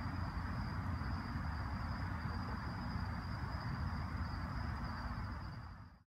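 Night-time insects, likely crickets, trilling in one steady, unbroken high tone over a low rumble. The sound fades out just before the end.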